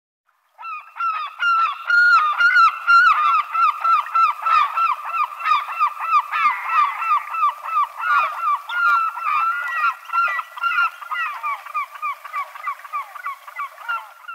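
Several gulls calling, a rapid, unbroken stream of short, harsh, overlapping calls, a little quieter toward the end.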